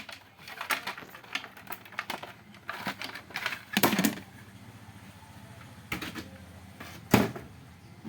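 Irregular clicks and light knocks of hand tools and parts being handled while an LED TV is taken apart, with a louder knock about four seconds in and another just after seven seconds.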